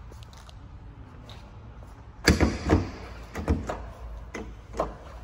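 Front trunk lid of a 2020 Corvette Stingray being unlatched and handled: a sharp clunk about two seconds in, then a run of knocks and clicks.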